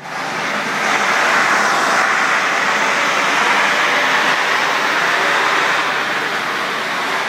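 A 3,500 psi hot-water pressure-cleaning wand spraying a tile floor corner, giving a loud, steady hiss that comes on just as the trigger is pulled.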